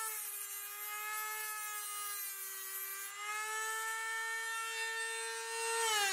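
Dremel rotary tool with a cut-off wheel running on high with a steady high whine as it cuts into aluminum Schluter tile edge trim. Its pitch sags slightly under load for a couple of seconds, then recovers. Near the end the pitch starts to fall as the tool winds down.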